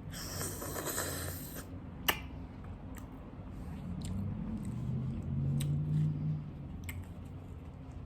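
Close-miked mukbang eating sounds: wet chewing of chicken mole and bean tamale, with soft clicks. There is a rustly squish in the first second and a half, a sharp click about two seconds in, and a low hum near the six-second mark.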